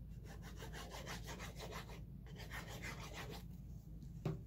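Fine metal tip of a squeeze bottle of liquid glue scratching over black cardstock in quick zigzag strokes, in two runs with a short pause about two seconds in. A single knock near the end.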